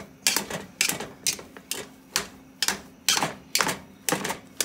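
An old-fashioned wire potato masher pounding boiled potatoes in a metal pot, its wire clacking against the pot in a steady rhythm of about two strokes a second.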